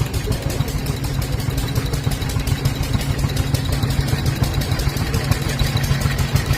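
1925 stationary steam engine driving a water pump, running steadily with a fast, even beat.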